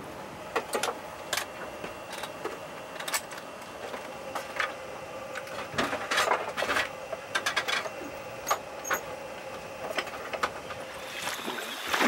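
Scattered sharp clicks and knocks of diving and camera gear being handled on a boat deck, including the latches and knobs of an underwater camera housing, over a faint steady hum. A splash of water starts near the end as a diver goes over the side.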